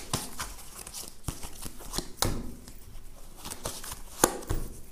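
A deck of tarot cards being shuffled and handled: light card rustling with a string of sharp snaps, the loudest about four seconds in.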